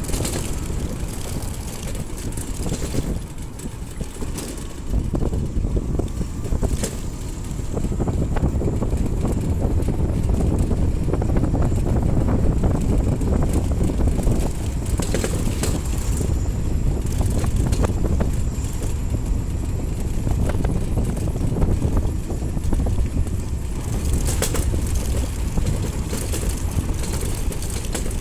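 Vehicle in motion: a steady low rumble with wind buffeting the microphone and scattered knocks and rattles, growing louder about eight seconds in.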